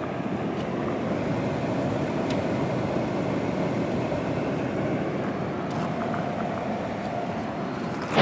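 1981 Emerson Quiet Kool window air conditioner running on fan only: a steady blower whoosh with a faint hum. Its compressor has cycled off under the energy-saver setting.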